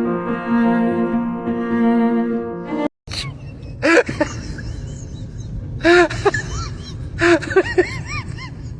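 Music with sustained, held bowed-string notes that cuts off about three seconds in. Then a pet gives a series of short cries that rise and fall in pitch, about five of them, over steady background noise.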